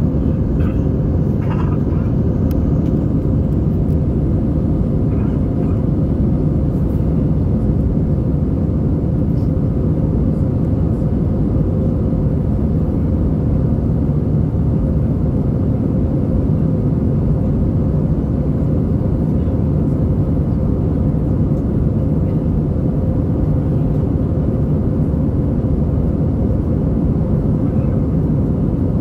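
Steady cabin noise of an Airbus A320 in flight, heard from a window seat: the low drone of the engines and airflow at a constant level, with a steady hum running through it.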